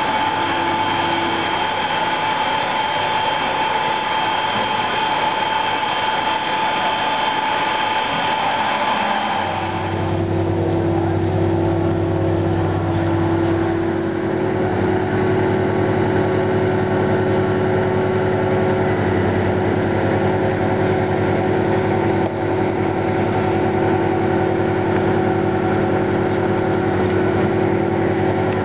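Steady machinery noise with a high whine, then, after a cut about ten seconds in, the diesel engine of a Kirow KRC 1200 railway crane running steadily with a low hum.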